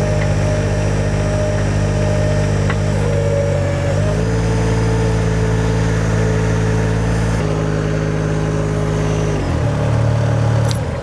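Workboat engine running with its hydraulics under load while the loader arms are worked to couple onto an attachment. The pitch rises about four seconds in and drops twice near the end.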